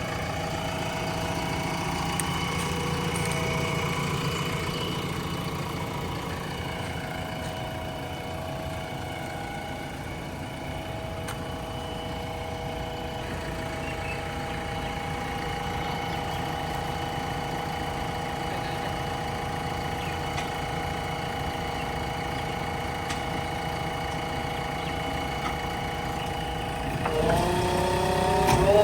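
JCB 3DX backhoe loader's diesel engine running steadily at low revs, then revving up near the end.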